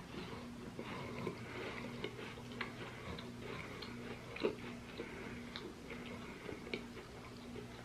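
Chocolate chip butter shortbread cookies being chewed, heard as scattered soft crunches and small clicks, over a faint low hum.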